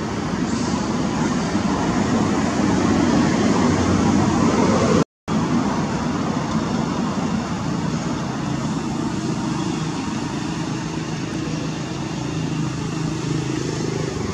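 Steady rumble of motor vehicle traffic, with an engine hum running under it, cut off for a moment about five seconds in.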